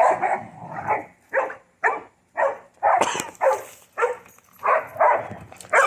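A dog barking over and over in short, sharp barks, about two a second, excited during play.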